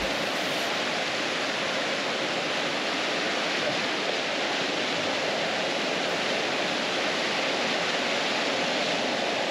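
Rain-swollen river rushing and churning over a sand beach, a steady loud rush of fast, turbulent floodwater.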